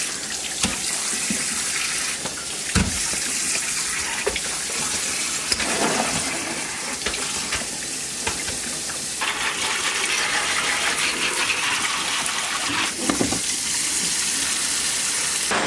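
Kitchen faucet running a steady stream into a sink over cabbage heads being rinsed, water splashing off the leaves. A few brief knocks as heads are handled, and the splashing turns brighter about nine seconds in.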